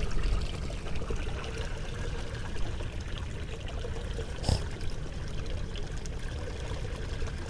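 Water trickling and flowing steadily, with one sharp click about four and a half seconds in.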